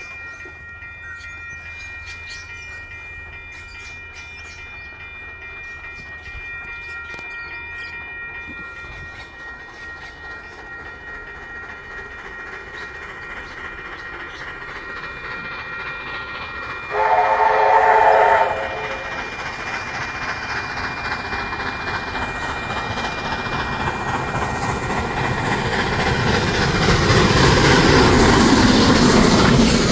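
A steam locomotive hauling passenger carriages approaches. Its whistle sounds once, a pitched chord about a second and a half long, a little past halfway. After that the train's sound grows steadily louder as it draws near, loudest at the end.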